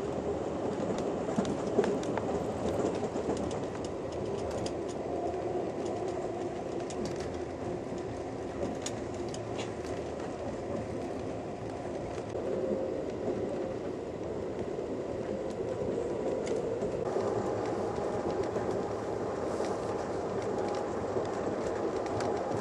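Steady rumble of a passenger train car rolling along the track, with scattered faint clicks of the wheels over the rails.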